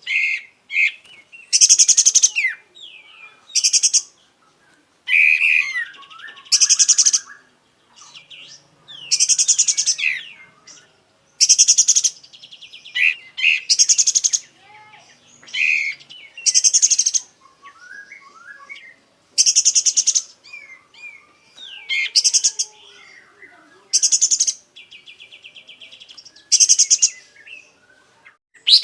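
Kapas tembak songbird singing hard: loud, sharp, rattling trills of about half a second each, repeated roughly every two seconds, with softer, varied twittering phrases between them.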